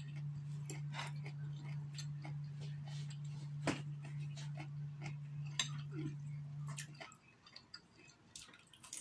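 Close-up eating sounds: chewing of instant noodles and a glazed chicken wing, with many small clicks and taps of chopsticks against the plate, two of them sharper. A steady low hum runs underneath and cuts off about seven seconds in.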